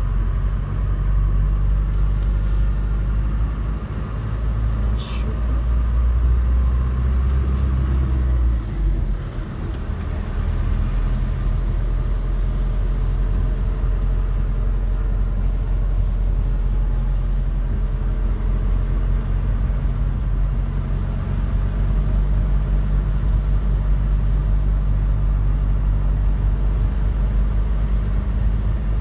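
Car cabin sound while driving on a rain-soaked road: a steady low engine and road rumble, whose deepest part eases about nine seconds in.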